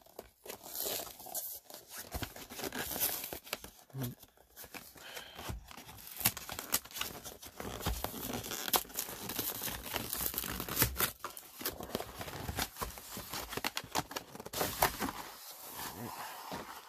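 Plastic shrink-wrap being torn open and crinkled off a boxed card-game deck: a long run of irregular tearing, rustling and sharp crackles.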